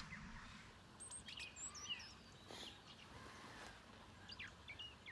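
Songbirds chirping faintly: short calls and quick sweeping notes in a few scattered clusters over a quiet background.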